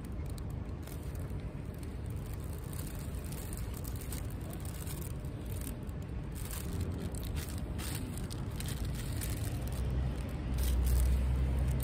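Plastic bag crinkling and rustling in short bursts as a wrapped rice ball is handled, over a steady low rumble of street traffic that grows louder near the end.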